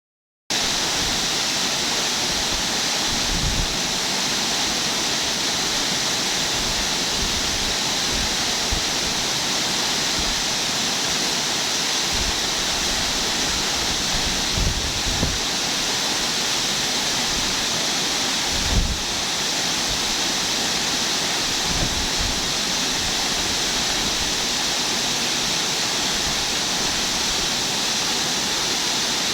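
Waterfall: the steady, even rush of water falling and splashing, with a few brief low bumps along the way.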